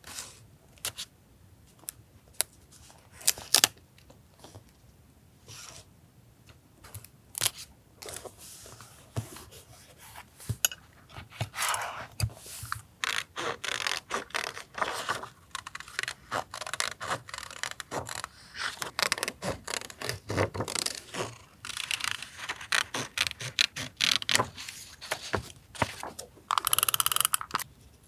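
Close-miked paper-crafting sounds: paper, stickers and tape being handled, peeled and pressed down in scattered taps and scrapes that grow busier about a third of the way in. Near the end there is one longer noisy stroke lasting about a second.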